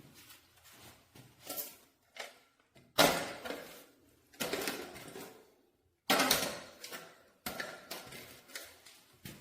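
Fan parts being handled and fitted together during assembly: irregular clicks and knocks, with four louder clunks in the second half.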